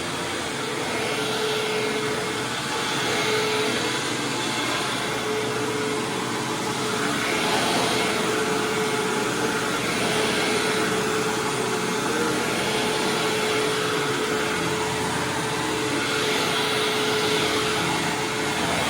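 Hoover WindTunnel Supreme upright vacuum cleaner running on carpet: a steady motor whine under airflow noise, swelling and easing slightly every two to three seconds as it is worked over the floor.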